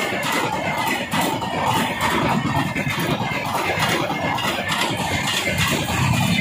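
Coaches of an Indian Railways express train passing at speed close by: a steady rumble of wheels on the rails with a rapid clatter running through it.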